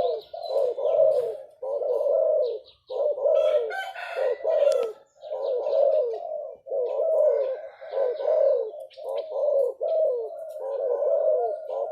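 Doves cooing: one phrase after another with short gaps, with faint higher chirps from small birds now and then.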